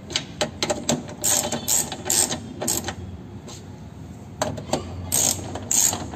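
Hand ratchet wrench with a socket clicking in short bursts as the window regulator's mounting bolts are tightened into the door's inner panel, with a quieter pause around the middle.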